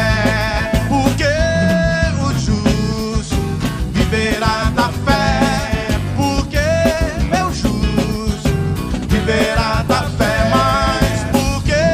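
Live band playing an upbeat gospel song with a bouncing off-beat rhythm: a wavering melody line over bass, guitar and drums.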